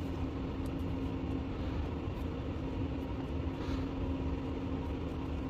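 Steady mechanical hum with a low rumble and one constant mid-low tone.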